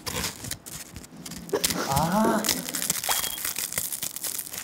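Close-miked rustling and crinkling with many small crackles, an ASMR sound of a snack being handled. A brief voice cuts in about two seconds in.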